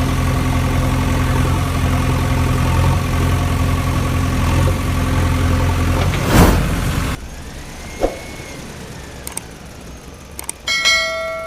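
Engine idling steadily, ending with a loud knock about six seconds in, after which it cuts off abruptly. A short ringing chime sounds near the end.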